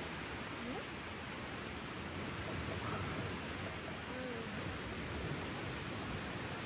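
Steady rushing background noise at an even level, with a few faint short pitched calls about a second, three seconds and four seconds in.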